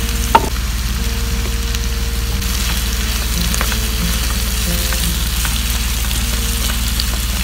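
Tomatoes, onion, green chillies and coriander sizzling steadily in a nonstick frying pan on a portable gas camp stove as they are stirred with a spatula. A sharp knock about half a second in, with a few light ticks after it.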